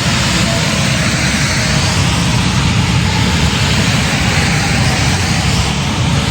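Steady low rumble of a semi truck's diesel engine under an even hiss of road and wind noise.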